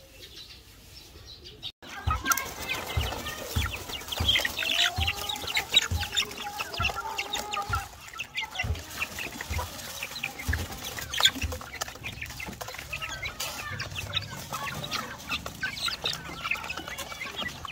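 Chickens clucking, starting about two seconds in, mixed with many short clicks and low thuds.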